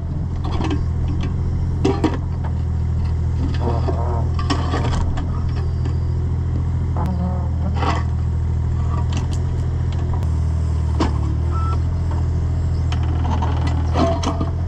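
Cat 301.5 mini excavator's diesel engine running steadily under hydraulic load, its note shifting about two-thirds of the way through, while the steel bucket pries a large rock out of the ground and lifts it. Scattered scrapes and knocks of steel and rock on stone come through over the engine, with a sharper one near the end.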